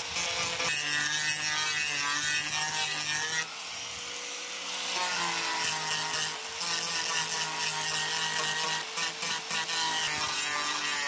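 Small electric angle grinder with a sanding disc, running steadily while it sands paint and filler off a car's lower body panel, the disc grinding against the surface. The motor note eases briefly about four seconds in, then takes up the load again.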